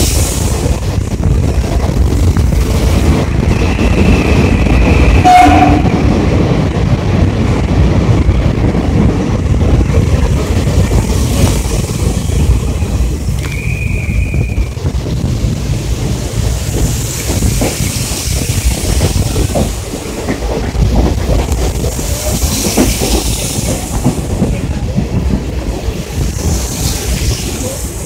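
Deccan Queen express coaches running at speed, heard from an open coach doorway: a steady rumble of wheels on the rails with clickety-clack and rushing air. Two brief high tones sound, one about four seconds in and one about halfway through.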